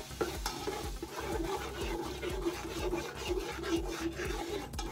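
Slotted metal utensil scraping and stirring flour and hot oil against the bottom of an aluminium stockpot in quick repeated strokes: the start of a roux.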